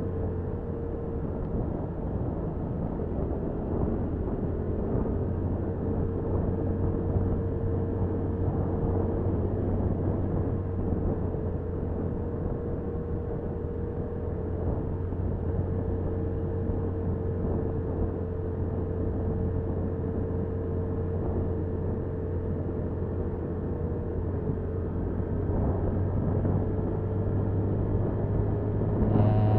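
Honda Cub motorcycle's single-cylinder engine running steadily while riding, mixed with road and wind noise. The engine note rises and gets louder just before the end as the bike accelerates.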